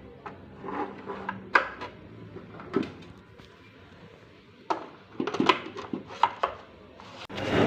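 Irregular light knocks, taps and clatter of small objects being handled and set down, most of them bunched together in the second half.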